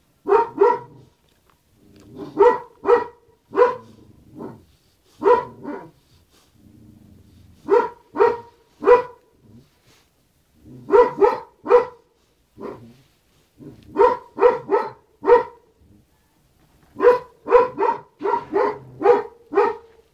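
A dog barking repeatedly, in quick runs of two to six short, sharp barks every few seconds.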